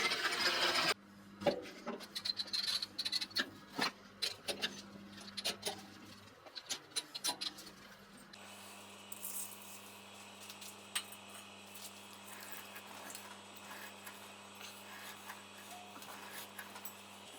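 A power drill runs and stops about a second in, followed by scattered light clicks and taps of hand work on small parts, which thin out to faint occasional ticks over a low steady hum.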